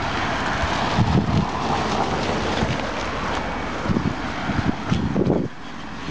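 Wind buffeting the microphone as a steady rushing noise, with a few low thumps from the handheld camera being jostled while walking.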